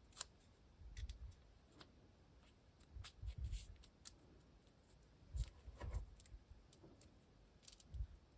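Hands working with small parts and tools: scattered light clicks and taps, with a few soft, dull knocks about one, three, and five to six seconds in.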